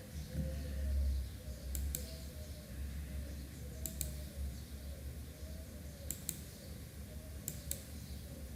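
Four pairs of short, sharp clicks, each pair a double click, spaced about two seconds apart, over a faint low hum.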